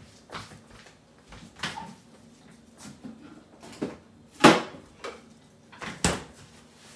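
About half a dozen scattered kitchen knocks and clunks from objects being handled and set down, at irregular intervals, the loudest about four and a half seconds in.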